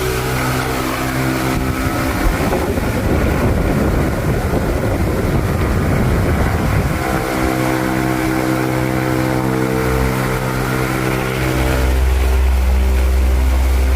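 Arno '4 ventos' electric fan's motor running with a steady hum. There is a rougher, noisier stretch from about two to seven seconds in, and a deeper hum grows louder near the end. The noise is the fault the uploader is showing.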